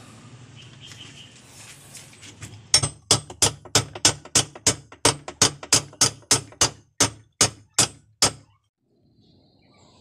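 Rapid metallic hammer blows on a spanner wrench, about three a second for some five seconds, working loose the stuck hub nut that holds a top-load washing machine's spin basket; the blows stop abruptly.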